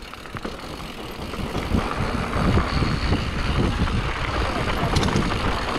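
Mountain bike descending a rough dirt trail: wind and tyre noise with irregular knocks and rattles from the bike over bumps, louder from about two seconds in.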